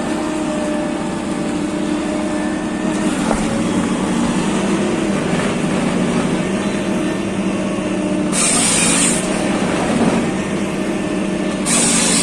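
Heavy forestry harvesting machine's engine running steadily with a low drone. Two short bursts of hiss come about eight and eleven and a half seconds in.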